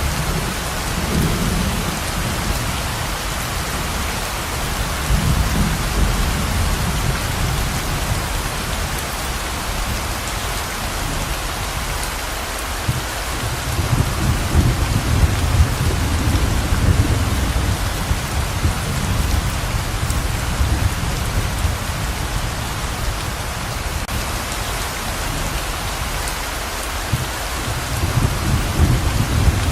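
Heavy rain pouring steadily, with low rumbles of thunder rolling in several times, the longest about halfway through.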